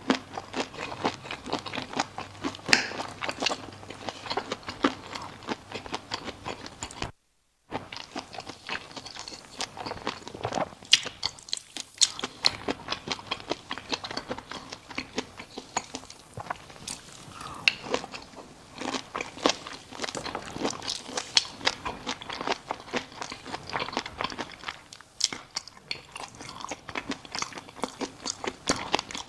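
Close-miked eating: a person biting and chewing crunchy food, with many crisp, irregular crunches and crackles. A brief silent gap comes about seven seconds in.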